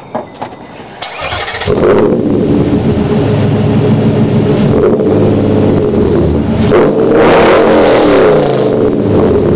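2008 Nissan Titan's 5.6-litre V8, breathing through long-tube headers, an X-pipe and true dual Magnaflow mufflers with no catalytic converters, cranks and fires about a second and a half in, then idles loudly. About seven seconds in it is revved once and falls back to idle.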